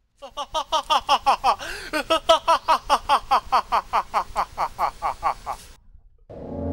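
A young man laughing hard in a long run of quick "ha" bursts, about five a second, each dropping in pitch, stopping a little before the end.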